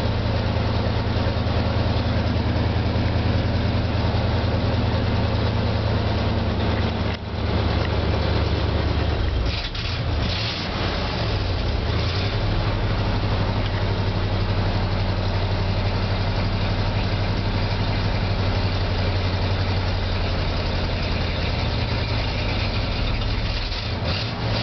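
1975 Ford F-500's carbureted 390 cubic-inch V8 idling steadily while still cold and warming up, heard from inside the cab. About ten seconds in, the idle note shifts slightly, after two brief dips.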